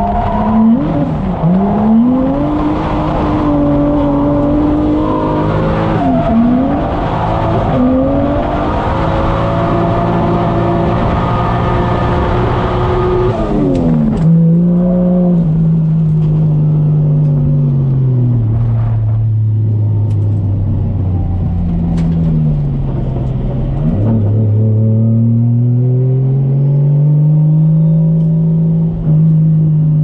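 Nissan 240SX's swapped 1JZ VVTi inline-six engine, heard from inside the cabin, revving up and down hard under load. About halfway through it backs off to lower revs, then climbs steadily again near the end.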